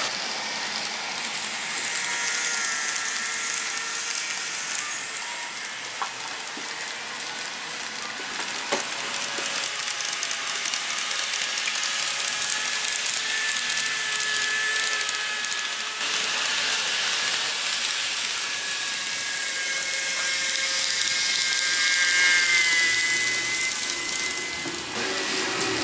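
N-gauge model trains running on the layout: a steady rushing hiss of small metal wheels rolling on the track, with the faint whine of the locomotives' electric motors drifting slowly in pitch.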